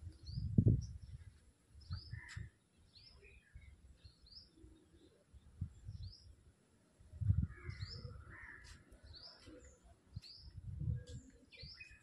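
Small birds chirping: short high calls, each sweeping down in pitch, repeated irregularly every second or so. Bursts of low rumble come and go underneath, loudest near the start and about seven seconds in.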